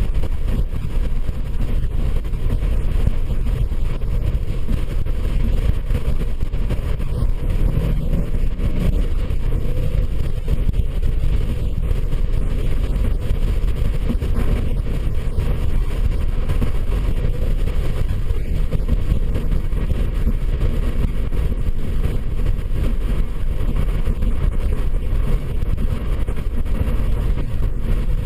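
A vehicle driving steadily, its engine and ground noise making an unbroken low rumble.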